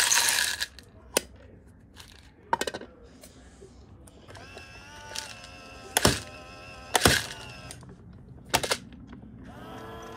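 Hollow plastic clatter and sharp knocks of toy garbage bins and a toy garbage truck being handled on a wooden deck: a burst of clatter at the start, then single knocks spread through. From about four seconds in a steady hum with several pitches runs underneath.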